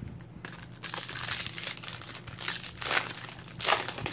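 Foil wrapper of a trading card pack crinkling and tearing as it is ripped open by hand, with louder rips about three seconds in and again just before the end.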